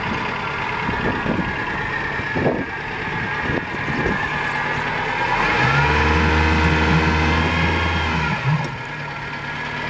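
Yamaha 100 hp four-stroke outboard motor running at idle. About halfway through it runs louder and deeper for around three seconds, then settles back to idle.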